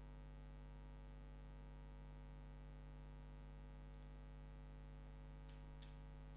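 Near silence: a steady low electrical mains hum, with a few faint mouse clicks, one about four seconds in and two close together near the end.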